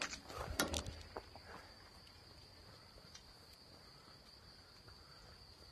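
A runner's quick footfalls pass close by in the first second, then insects chirr steadily in the meadow grass in a high, even tone.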